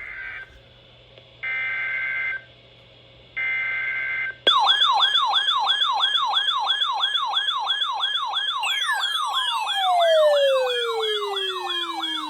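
Emergency Alert System end-of-message data bursts: the tail of one and two more, each about a second long and a second apart, with a harsh two-pitch buzz. Then a loud electronic siren begins yelping, its pitch rising and falling rapidly, and from about two thirds of the way in a second siren tone slides slowly down in pitch.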